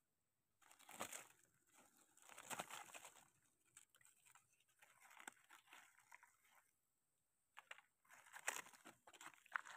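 Dry fallen leaves crackling and rustling in short bursts as a hand works through the leaf litter and pulls up a wild mushroom.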